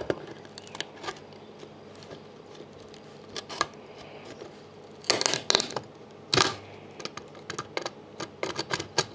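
Adjustable grips clamping and wrenching small components off a power supply's circuit board: scattered clicks and cracks, a burst of louder cracks about five seconds in and a sharp snap just after.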